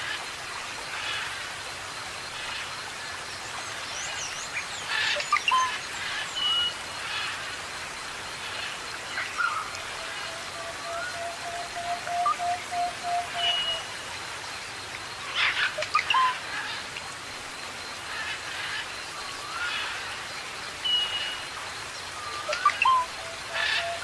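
Rainforest ambience: several birds calling with short high whistles and rising and falling chirps, over a steady hiss of water. Near the middle there is one long, steady low whistle lasting about four seconds.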